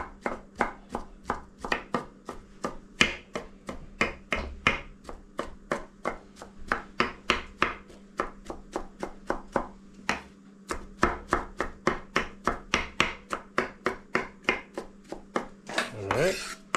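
Knife chopping broccoli into small pieces, steady strokes at about three a second, with a short pause around ten seconds in.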